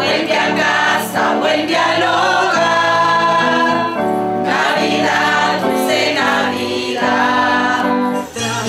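Women's choir singing a Christmas carol together, several voices holding and changing notes in a steady flow.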